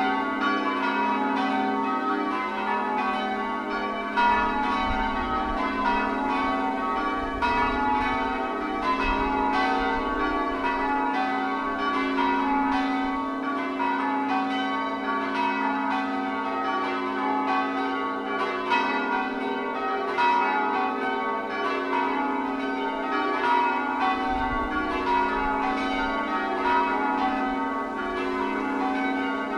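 A ring of eight church bells in F♯, tenor 626 kg, rung full-circle in changes: the bells strike one after another in an even, unbroken rhythm, each note ringing on into the next.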